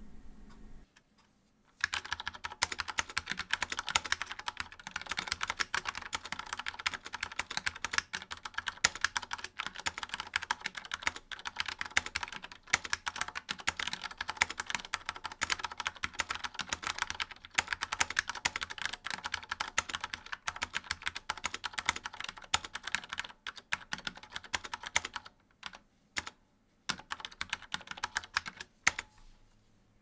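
Fast typing on an Apple IIgs keyboard with tactile, non-clicky SMK switches: a dense run of keystrokes that starts about two seconds in, with a few short pauses near the end.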